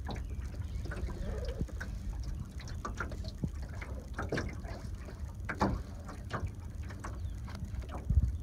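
Light water lapping against the side of a small metal boat, under a low steady wind rumble on the microphone, with scattered small knocks and clicks.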